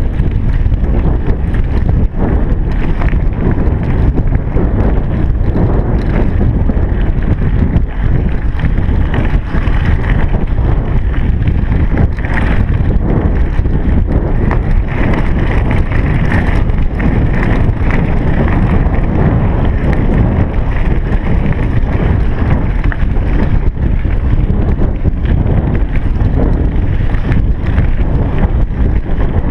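Wind buffeting the microphone of a chest-mounted GoPro HD Hero3 on a moving bicycle: a loud, steady low rumble with a few faint clicks.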